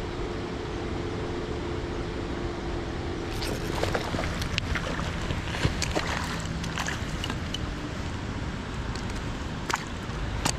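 Steady rushing noise of rain and running water with wind, and a faint hum early on; from about three seconds in, scattered sharp taps and clicks.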